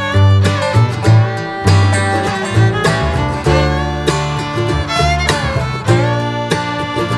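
Upbeat country-style background music with plucked strings and fiddle over a steady beat and a moving bass line.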